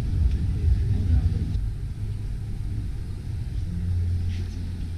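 Steady low rumble of background noise in a large indoor hall, with no distinct event standing out.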